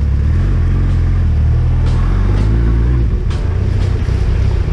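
Motorcycle engine running as the bike rides slowly along, a deep steady rumble whose note changes about two and three seconds in, with a steady hiss over it.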